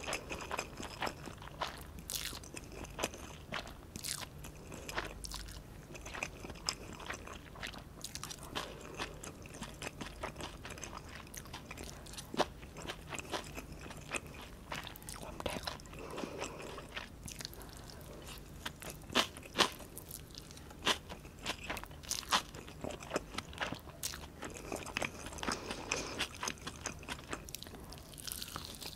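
Close-miked eating sounds: a person chewing stir-fried instant noodles (Maggi goreng), with many short sharp mouth clicks and smacks at irregular intervals. Near the end comes a bite into a piece of roasted honey chicken.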